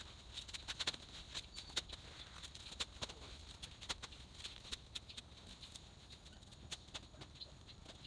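Shovel blade cutting into and turning garden soil, a dense irregular run of short scrapes and clicks, played fast-forwarded. The clicks thin out near the end.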